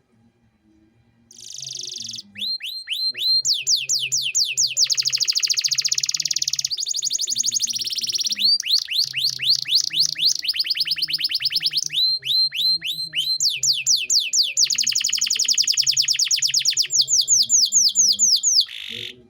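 Male canary singing loudly: a long, high-pitched song of rapidly repeated down-slurred notes and trills, switching to a new phrase every second or two. It starts about a second in and stops just before the end.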